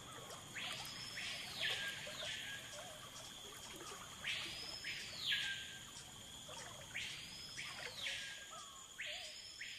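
Tropical forest ambience: a steady high insect hum, with calls that sweep up and back down in pitch, each about a second long, coming mostly in pairs every few seconds.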